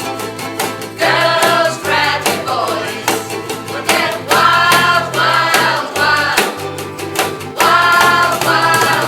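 Rock song playing: voices singing over guitar, with a bass line stepping under it.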